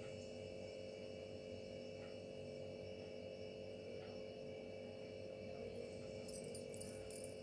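Steady electrical hum, with a few faint clicks and rustles near the end.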